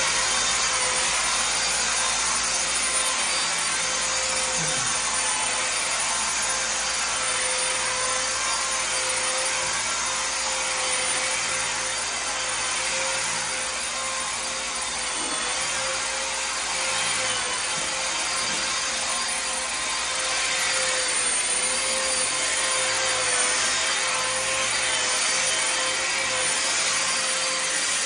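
Electric sander running steadily, sanding a faux-marble wall finish with 3000-grit sandpaper: the final fine-grit stage that brings the surface to a mirror gloss.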